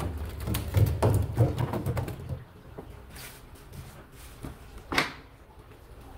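Handling noise from working a fishing line in a small boat: a run of low knocks and rubbing for about two seconds, then quieter, with one sharp click about five seconds in.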